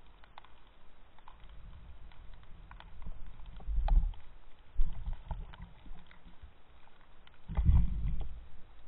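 Underwater sound picked up by a camera in its housing: low rumbling surges of water movement, loudest about four seconds in and again near the end, over a scatter of faint crackling clicks.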